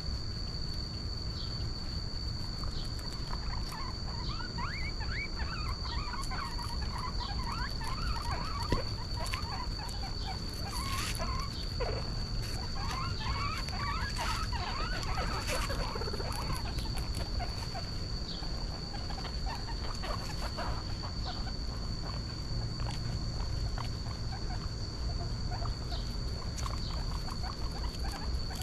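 Many short, quickly rising squeaks or peeps from young animals, thickest in the first half and sparser later, over a steady high whine and a low hum.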